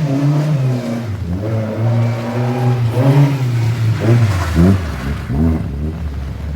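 A car engine revving and accelerating hard, its pitch rising and dropping several times, with quick upward sweeps just past the middle.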